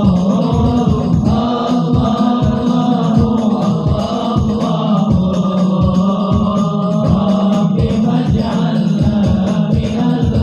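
Sholawat, Arabic devotional chanting by voices in unison over a steady low rhythmic beat.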